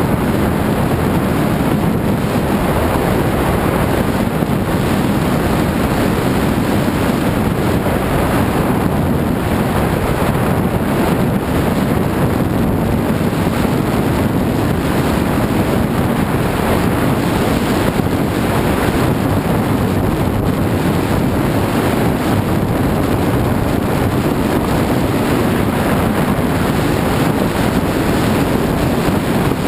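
Steady wind rush buffeting an action camera's microphone as a skier runs fast down a groomed slope.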